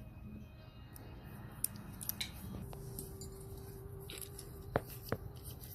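Light metallic clicks and taps of small carburetor parts being handled and fitted back together, a few scattered strikes with the sharpest near the end, over a faint steady hum.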